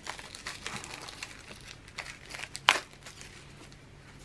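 Packaging crinkling as a small canvas pad is unwrapped and turned over in the hands, a run of small crackles with one sharper, louder crackle about two and a half seconds in.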